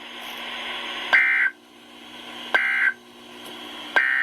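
NOAA Weather Radio SAME digital data bursts: three short, buzzy two-tone chirps about a second and a half apart, over radio hiss. Bursts this short are the end-of-message code that closes an EAS alert.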